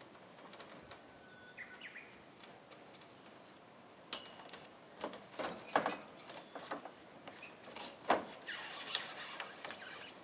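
Footsteps and knocks on corrugated roof sheeting as a person walks across it and climbs down, gripping a metal pole, onto a stepladder: a few sharp thumps and rattles, the loudest in the second half. Short bird chirps sound faintly in the first few seconds.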